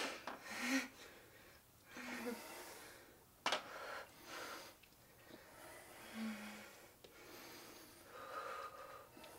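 Faint, effortful breathing of people lifting dumbbells, with a few brief low hums and one sharp click about three and a half seconds in.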